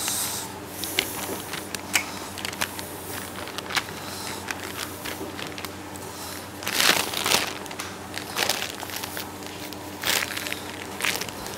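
Plastic piping bag crinkling and rustling as it is handled and shaken, with scattered clicks and a few louder rustles in the second half, over a faint steady low hum.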